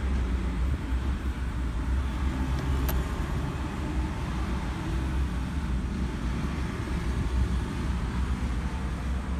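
Steady low vehicle rumble heard inside the cabin of a stationary Honda N-VAN, with one sharp click about three seconds in.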